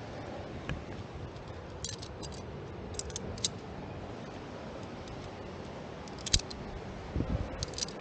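Metal climbing gear, carabiners and via ferrata kit, clinking in a handful of short sharp clicks over a steady rushing background, with a few soft thuds near the end.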